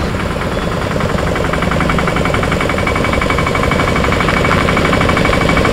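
Piaggio Ape three-wheeler's engine running at idle with a rapid, even clatter, growing slightly louder.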